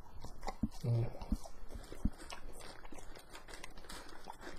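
Fries being handled in a paper bag: a few light knocks and paper rustles. There is a brief low voiced hum about a second in.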